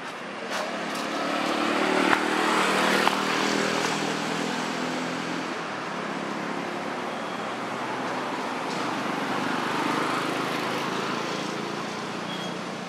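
A motor engine running steadily, swelling to its loudest a few seconds in and then holding, with a single sharp click about two seconds in.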